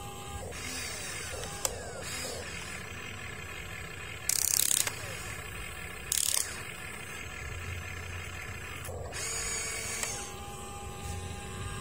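Huina RC excavator's electric motors and gearing whining as the boom, arm and bucket move, the whine holding steady pitches that shift as one movement stops and another starts. Two short, loud rasping bursts about four and six seconds in are the bucket scraping into the sand.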